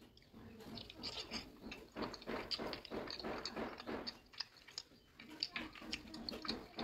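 Rhesus macaque biting and chewing raw cucumber pieces: a quick run of crisp, wet crunches, starting about a second in.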